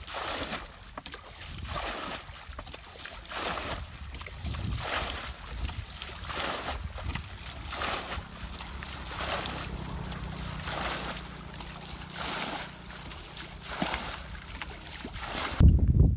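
Water being bailed out of a shallow ditch with a plastic bucket: a scoop and a splash of thrown water about every one and a half seconds. Just before the end a sudden loud low rumble of wind on the microphone takes over.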